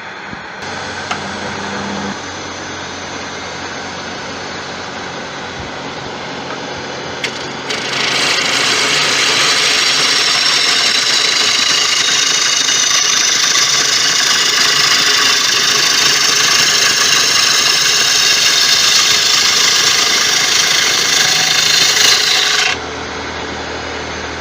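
Woodturning gouge being sharpened on a bench grinder: a loud, steady grinding hiss from about eight seconds in, held for about fifteen seconds, then cutting off suddenly.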